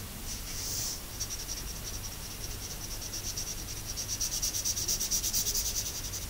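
Felt-tip marker scratching across paper as it colors in back-and-forth strokes. In the second half it becomes a fast, even rasp of several strokes a second.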